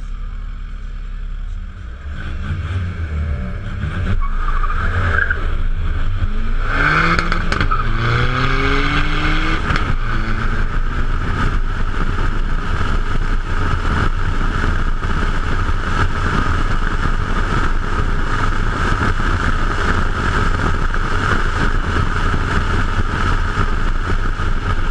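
A BMW 335i twin-turbo straight-six idles at the start line, then launches about two seconds in and pulls hard through several gears, each as a rising engine note that drops back at the shift. From about eight seconds on, a steady loud roar of wind and tyres at speed on the car-mounted microphone covers the engine.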